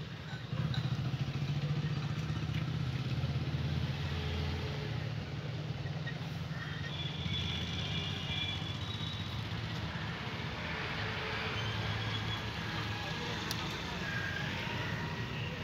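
Mahindra Xylo's diesel engine running steadily, a low hum that gets louder about half a second in.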